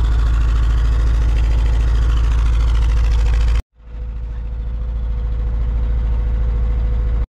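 1984 Łada 2105's 1.3-litre four-cylinder carburettor engine idling steadily after a cold start, heard from the tailpipe. The sound cuts out suddenly a little past halfway, then the idle picks up again sounding duller.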